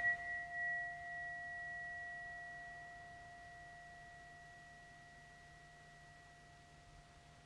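A struck chime tone ringing out on two steady pitches, one low and one high, slowly fading away to near silence.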